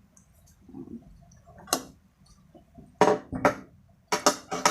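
Close-up eating of squid: a few sharp wet mouth smacks and chewing clicks, the loudest two about three seconds in and two more near the end.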